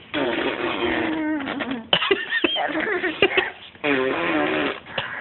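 Small child blowing raspberries with her lips: wet, sputtering fart-like noises about two seconds in, with bits of voiced vocalising or laughter before and after.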